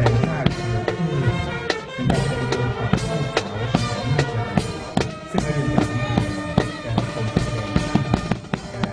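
Music with drums and other instruments, with regular sharp beats throughout.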